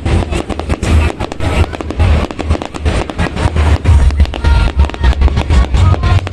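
Fireworks going off in rapid succession: many sharp bangs and crackles over strong low thuds.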